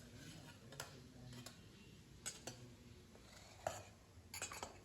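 Faint, irregular light clicks and taps of a spoon against a puttu maker as layers of grated coconut and puttu mix are spooned into it, with a small cluster of taps near the end.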